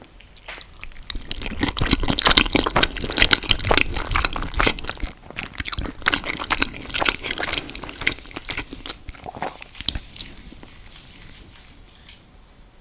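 Wet, squelching sounds of sauce-coated spaghetti being eaten close to the microphone: a dense run of sticky little clicks, loudest in the first few seconds, that trails off before the end.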